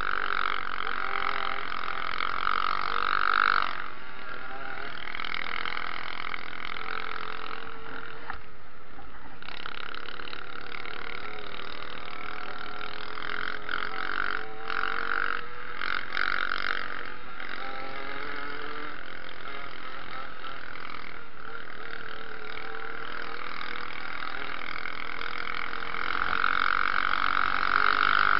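Pit bike's 125 cc engine running under way, its pitch rising and falling as the throttle opens and closes. There is a brief lull about eight seconds in, and it runs louder near the end.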